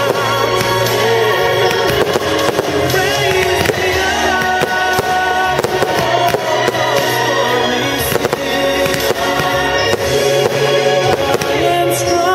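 Aerial fireworks shells bursting and crackling in quick succession over a song with sustained chords.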